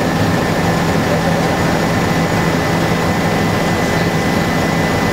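Helicopter cabin noise in flight: engine and rotor drone steadily with a constant low hum and a thin high whine above it, loud and unchanging.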